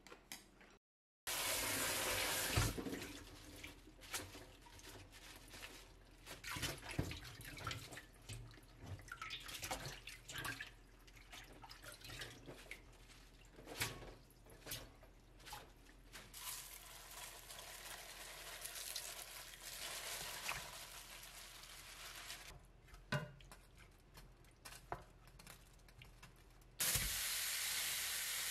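Tap water running into a stainless steel sink as leafy greens are rinsed by hand in a metal colander, with splashing and clattering. Near the end a sudden steady sizzle starts: pork belly going into a hot frying pan.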